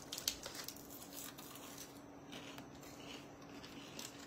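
Faint crinkling and rustling of foil candy wrappers as chocolate wafer bonbons are unwrapped by hand, in a few scattered soft crackles over a low steady hum.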